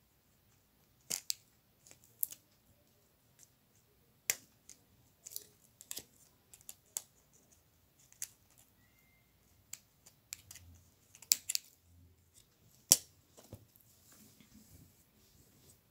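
Small scissors snipping red embroidery thread to trim a tassel: a string of sharp, separate snips at irregular intervals, the loudest two near the end.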